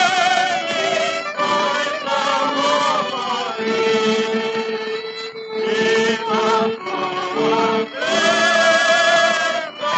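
A vocal quartet singing a Ukrainian folk song with a small orchestra, played from a 1930 Columbia 78 rpm record. The voices sing with a wide vibrato, with one long held note through the middle.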